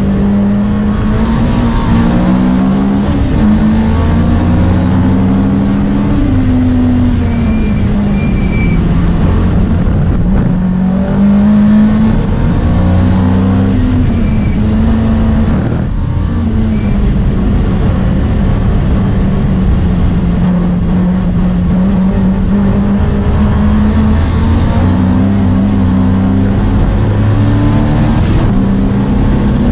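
Opel Kadett historic racing car's four-cylinder engine heard from inside the cabin at racing speed. It revs hard, with its pitch climbing and dropping in steps again and again as it changes gear through the corners.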